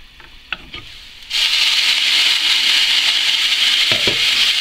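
Glass pan lid lifted off a stainless steel frying pan with a light clink, then loud steady sizzling of bitter gourd frying in oil from about a second in. Near the end a wooden spatula knocks against the pan as the pieces are stirred.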